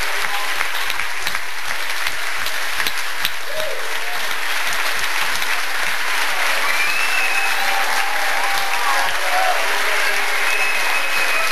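Large audience of hundreds clapping steadily, a dense unbroken applause, with a few voices calling out over it.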